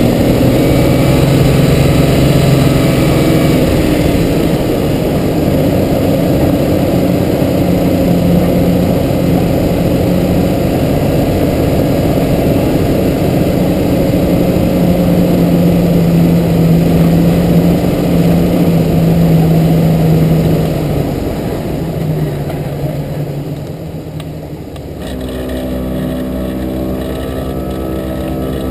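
Jeep TJ engine running under way on a dirt road, with tyre and road noise. About 21 seconds in it eases off, and from about 25 seconds it settles into a steady, lower, quieter running as the Jeep slows.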